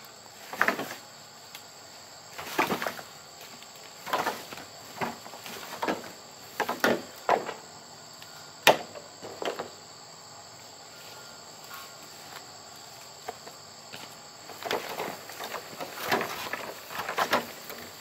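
Steady high-pitched drone of insects such as cicadas or crickets, over a series of irregular thuds and scrapes, one sharp click near the middle and a pause of a few seconds before they resume.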